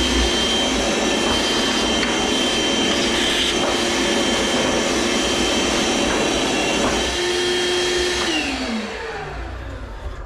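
Vacuum cleaner running with a steady motor whine, then switched off about eight seconds in, its pitch falling as the motor winds down.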